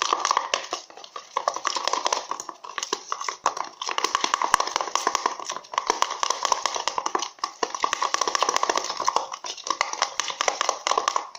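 Glue-based slime mixture being stirred fast in a tub, the stirring utensil clicking and scraping against the container in a quick, steady run of taps with a few short pauses, as baking soda is mixed in.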